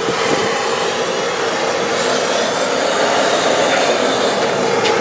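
Propane burner under the brew kettle running flat out: a steady, loud roar with a hum.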